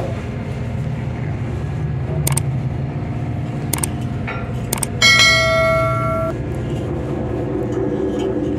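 Subscribe-button animation sound effects over a steady low hum: three mouse clicks, then a notification bell chime about five seconds in that rings for just over a second and fades.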